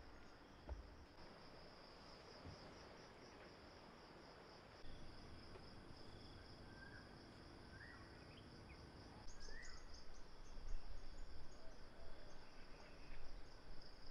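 Insects trilling steadily in a high, pulsing tone, with a few short rising bird chirps in the second half; the low background noise grows louder about two-thirds of the way in.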